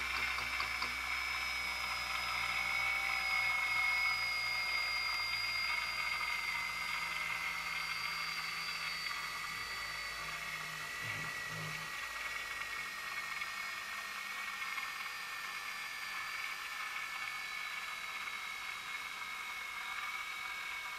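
High-pitched electric whine from the walking cube's motor running off an 8.4 V bench supply: two steady tones that slowly sink in pitch over a faint hiss. A low hum underneath drops out about two thirds of the way through.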